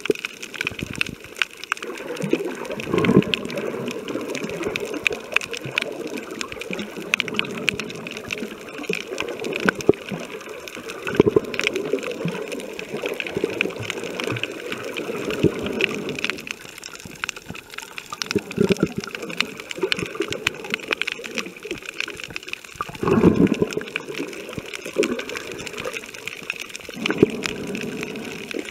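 Underwater sound recorded by a camera held below the surface: water rushing around the microphone in surges every few seconds, one louder surge near the end, over a constant crackle of small clicks.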